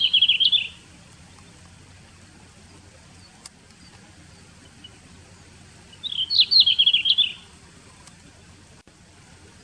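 Red-flanked bluetail song: short, high warbled phrases. The end of one phrase comes right at the start, and a full phrase of about a second and a half comes about six seconds in.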